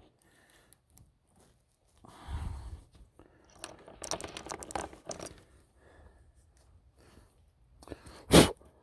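Clinks, rattles and scrapes of a disassembled chainsaw's chain and bar being handled during cleaning, in a few short bouts, then one short, loud knock or blast of noise near the end.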